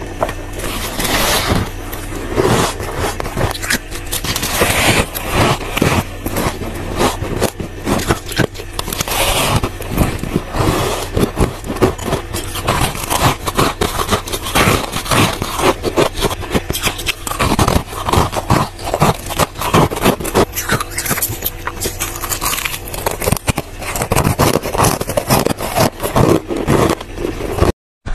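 Close-up crunching and squeaking of soft freezer frost being bitten and chewed, a dense run of crackles, over a steady low hum. The sound cuts out briefly near the end.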